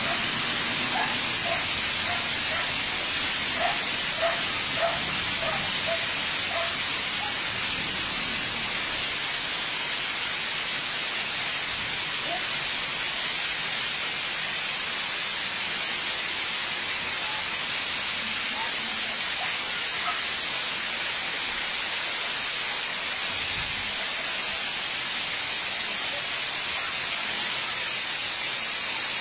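Steady, even hiss of a heavy downfall of volcanic ash and rain onto a road, trees and tin roofs.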